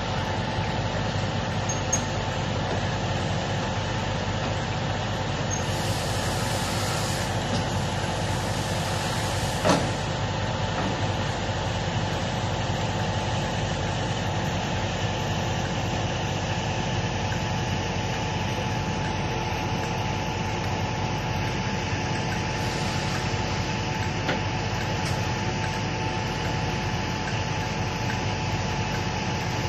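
Stationary Stoneblower track-maintenance machine's diesel engine running steadily: a constant drone with a steady high tone through it. A single sharp clank comes about ten seconds in.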